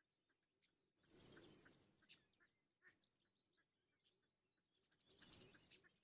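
Nestling birds in the nest giving two harsh, raspy calls, one about a second in and one near the end, over faint scattered chirping and a steady high whine.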